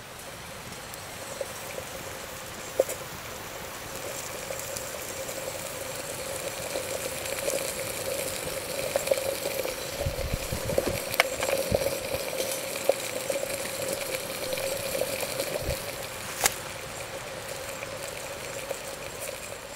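Water heating toward a boil in a metal water bottle set in a small twig campfire: a steady bubbling hiss, with a few sharp snaps from the burning twigs.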